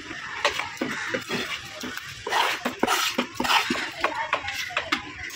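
A heavy knife knocking and scraping against a wooden chopping block as a large spadefish is cut up: a run of sharp irregular knocks, with a rougher scraping stretch in the middle.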